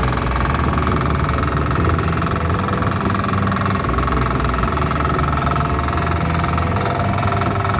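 An engine running steadily at a constant speed with a low rumble.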